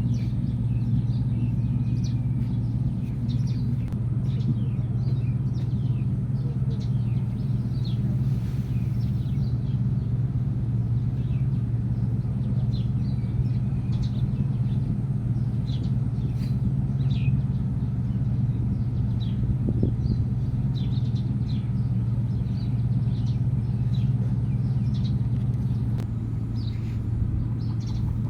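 A steady low rumble, with many short high chirps scattered over it.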